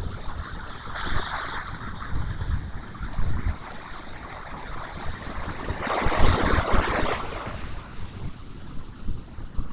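Ocean surf breaking and washing up the beach, two waves rushing in about a second in and again around six seconds in, with wind buffeting the microphone.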